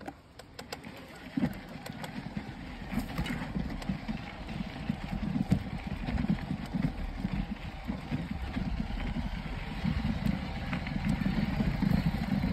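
Mountain bike riding fast down a dirt trail: wind buffeting the microphone and tyres rumbling over the ground, growing louder over the first few seconds as speed builds. A few sharp clicks and knocks come near the start.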